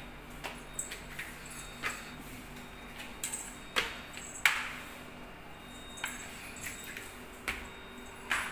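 A toddler's hands, knees and shoes tapping and knocking on tiled steps and floor while crawling up stairs: a dozen or so irregular light taps, the loudest about four and a half seconds in, over a faint steady hum.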